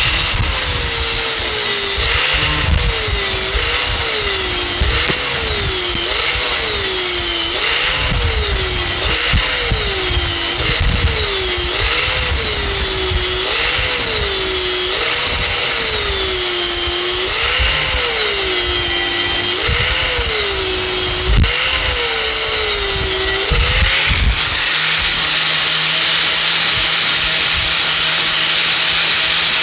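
Angle grinder with a flap disc grinding into a steel exhaust pipe to scoop out its middle. The motor pitch dips and recovers about every one and a half to two seconds as the disc bites and eases off, then runs steady near the end.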